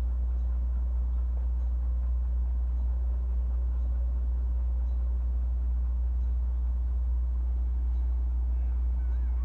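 A steady low rumble with no change in level.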